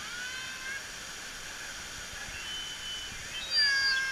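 High-pitched screams from water slide riders: a few gliding cries at the start and a louder, long scream about three and a half seconds in, over a steady hiss of running water.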